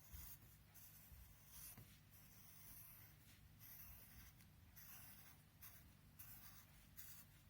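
Faint scratching of drawing on paper, in short irregular strokes with brief gaps, over a faint low hum.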